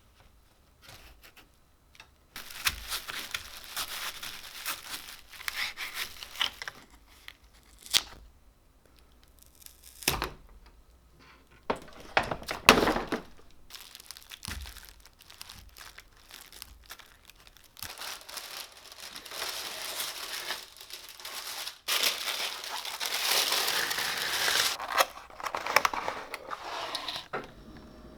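Irregular crinkling and tearing noises, coming and going in long stretches, with a few sharp knocks in between; the loudest knock comes about halfway through.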